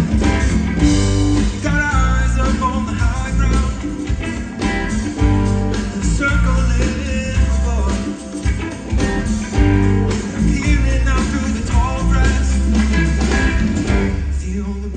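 A rock band playing live over a festival PA, heard from the crowd: electric guitar over bass, drums, percussion and keyboards. The music eases a little near the end.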